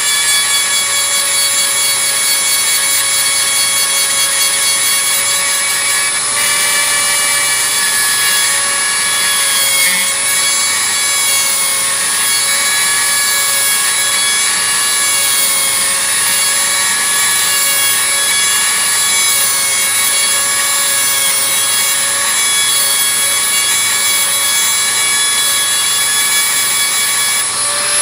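High-speed handheld rotary tool with a small grinding stone running steadily against the steel of an adjustable wrench's jaw, a high whine that dips and wavers under load. Near the end the pitch rises as the stone comes off the metal.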